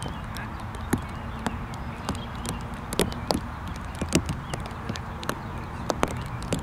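Outdoor field ambience: a steady low rumble with irregular sharp clicks and knocks, a few a second.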